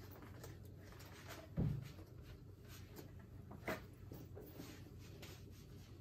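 Soft rustling and clicking of paramotor harness webbing and buckles as a seated person handles the straps, with a low thump about one and a half seconds in and a sharper click a couple of seconds later, over a faint steady hum.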